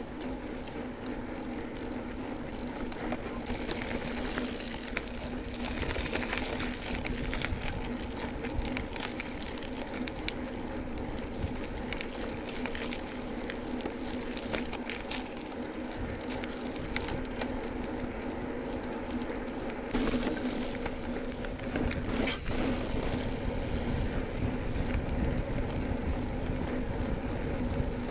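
Bicycle riding noise: a steady tyre hum with wind rumble on the microphone and scattered small clicks and rattles from the bike.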